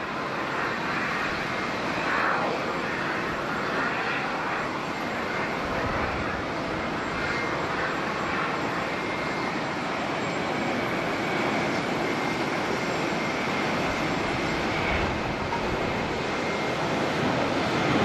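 Boeing 737-800 airliner's jet engines running at high power for takeoff, a steady even noise.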